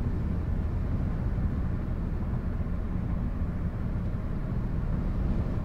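Steady low rumble of even background noise with no distinct events, like a vehicle or aircraft drone.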